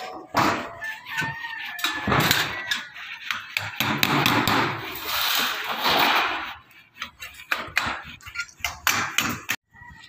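Rooster crowing several times, harsh and loud, over scattered knocks and clanks of corrugated steel deck sheets being handled.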